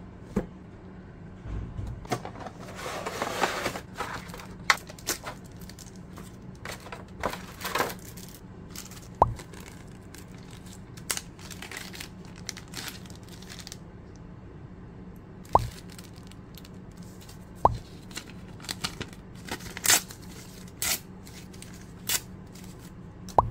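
Product packaging handled by hand: a cardboard box opened, a plastic parts bag crinkling and paper wrapping torn off, with scattered sharp clicks and knocks over a steady low hum.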